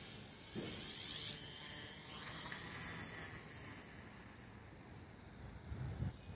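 OMP Hobby M1 micro RC helicopter's electric motors and rotor blades whining with a hiss, the pitch sliding up and down. The sound fades over the second half as the helicopter sets down on the pavement, and a couple of low thumps come near the end.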